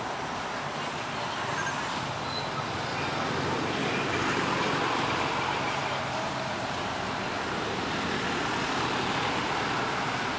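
Steady outdoor background noise: a constant hiss with a faint low hum that does not change, like distant road traffic. There are no distinct calls or knocks.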